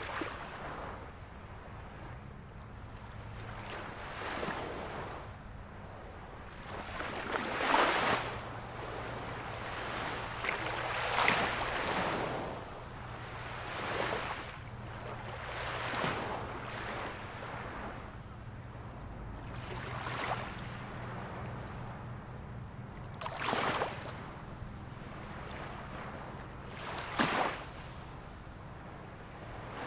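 Surf breaking on a rocky shore: a steady wash of sea with a louder wave crashing and splashing over the rocks every few seconds, under a faint steady low hum.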